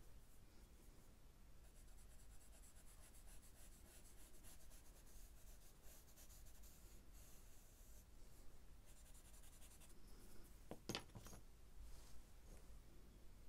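Faint scratching and rubbing of a paper blending stump drawn over charcoal on sketchbook paper, in repeated strokes, with a brief knock near the end.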